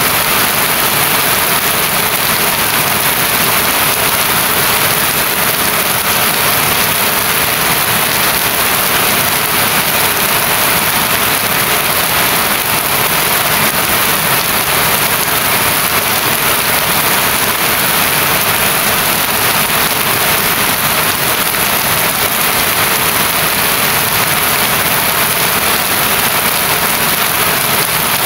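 Heavy rain falling steadily, a loud, even hiss with no pauses.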